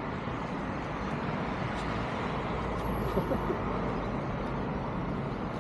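Steady street traffic noise, a continuous roadside hum.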